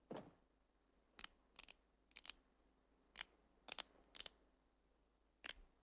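Cartoon knuckle-cracking sound effect: a kitten flexing his paws like a pianist before playing, heard as about a dozen short, crisp cracks, some single and some in quick pairs, with a brief softer falling sound at the very start.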